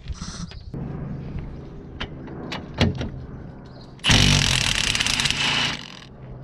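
Cordless impact wrench hammering on a suspension bolt for nearly two seconds, about four seconds in. Before it there are a few sharp metallic clicks over a low hum.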